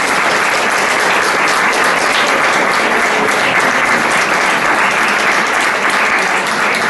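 Audience applauding: many people clapping at a steady, even level.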